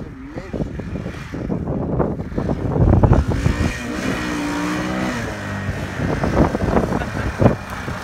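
Kawasaki Bayou KLF400 ATV's single-cylinder engine running and revving, its note rising and falling a few seconds in, with heavy wind buffeting the microphone.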